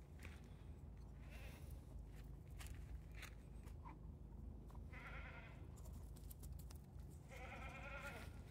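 Siberian husky whining in two short wavering cries, one about five seconds in and a longer one near the end, with scattered light rustles and clicks.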